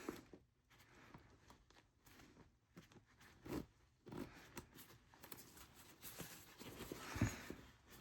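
Faint handling of a jacket's metal zipper and fabric: small clicks and rustles, with a few louder knocks about three and a half seconds in, around four seconds and near the end.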